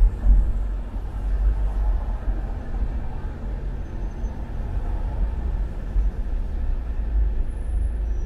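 Low, steady rumble of a car's engine and tyres heard from inside the cabin as it creeps along in congested traffic, with a couple of brief bumps near the start.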